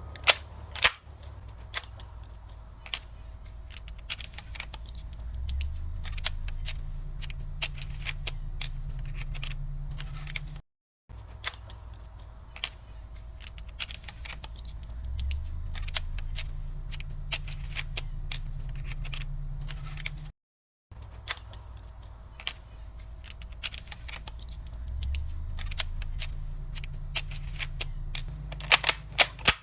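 Lebel 1886 bolt-action rifle being handled, most likely reloaded: scattered sharp metallic clicks and clacks over a low hum. This comes in three takes of about ten seconds, each ending in a brief dropout to silence.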